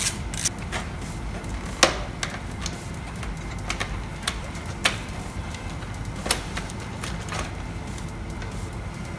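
Hand tools at work taking apart a motorcycle's headlight assembly: a quick run of ratchet clicks at the start, then scattered sharp clicks and knocks of tools and parts, the loudest about two seconds in.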